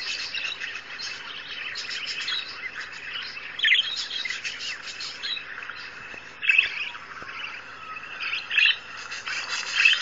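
Continuous high bird chirping and twittering from birdsong played on a laptop, with a pet parakeet close by. A few louder, sharp chirps stand out, about a third of the way in, two-thirds in and near the end.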